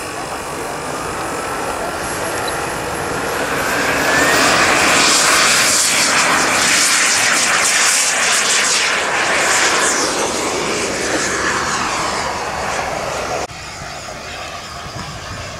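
Radio-controlled model jet engine with a whine rising in pitch, building to a loud rushing hiss as it powers up and goes by, then easing off; the level drops abruptly near the end.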